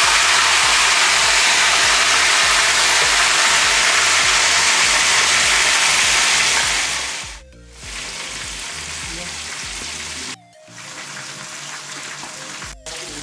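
Whole stuffed chicken frying in hot oil in a pan: a loud, steady sizzle that drops sharply about seven seconds in to a quieter sizzle, broken twice by brief gaps.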